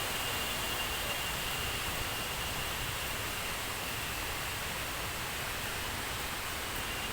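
Thi Lo Su waterfall's falling water rushing as a steady, even hiss. A faint high steady tone fades out in the first second or so and comes back near the end.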